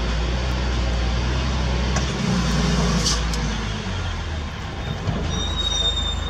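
Heavy diesel engine running steadily, its note shifting a couple of times, with a few sharp metallic clicks. A faint high squeal comes in near the end.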